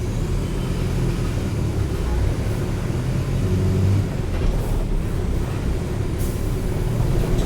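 Diesel engine of a Mercedes-Benz OF-1722M city bus running with a steady low drone, with a few faint clicks and rattles.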